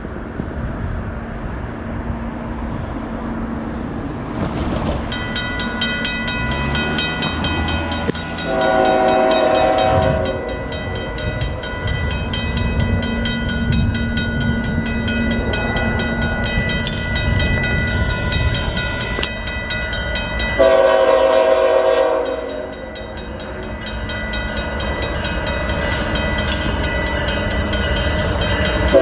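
Diesel freight locomotive's multi-tone air horn sounding for a level crossing: a long blast about eight seconds in, another about twenty seconds in, and a third starting at the very end, over the steady rumble of the approaching train. A level-crossing warning bell starts ringing rapidly about five seconds in and keeps going.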